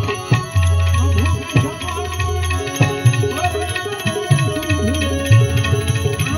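Live Gujarati devotional bhajan music: a harmonium playing sustained melody, tabla with deep bass strokes, and the plucked, twangy strings of an Indian banjo (bulbul tarang), with a man singing over them.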